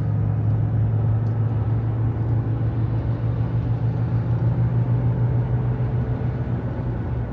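Steady road and wind noise inside a Jeep Grand Cherokee WK2's cabin at highway speed, with a low steady drone underneath.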